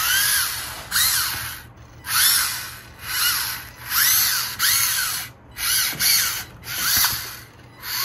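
Electric drive motor and gears of a homemade remote-control HMT 5911 model tractor whining in short throttle bursts, about one a second, each rising and falling in pitch as the tractor is driven back and forth in a throttle test.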